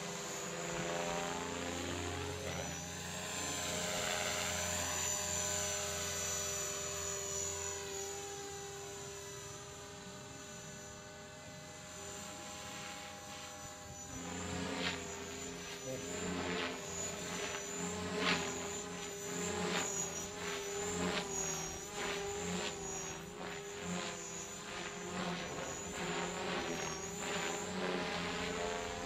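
Radio-controlled model helicopter flying aerobatics overhead: a steady rotor and drivetrain whine whose pitch rises and falls early on. From about halfway through, the rotor noise surges again and again, about one or two times a second, as it flips and rolls.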